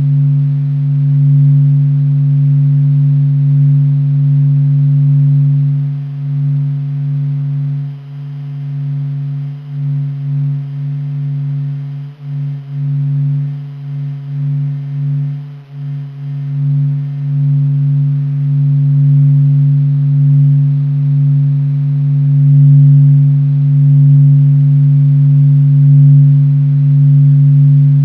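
Sound of the sun: NASA solar vibration data turned into audio, heard as a low steady hum with a fainter tone an octave above. It swells and dips unevenly, with a patch of wavering dips in the middle.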